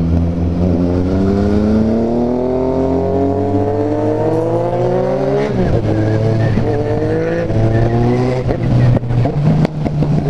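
Four-cylinder motorcycle engine with a 4-into-1 exhaust accelerating hard. Its pitch rises steadily for about five seconds, drops at a gear change and pulls again. A few sharp exhaust pops come near the end.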